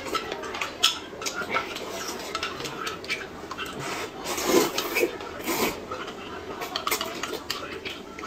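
A metal spoon clinking and scraping against a glass bowl in many quick, irregular taps, with a couple of louder slurps of noodles being sucked up around the middle.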